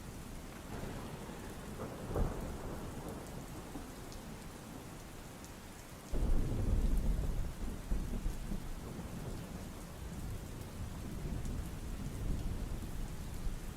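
Rain falling steadily with thunder: a short crack about two seconds in, then a loud low rumble that starts suddenly about six seconds in and rolls on, fading in waves.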